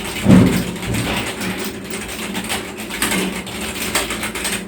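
Keys of an EvoFox Fireblade membrane (non-mechanical) gaming keyboard being pressed rapidly, a dense run of key clicks, demonstrating its typing sound.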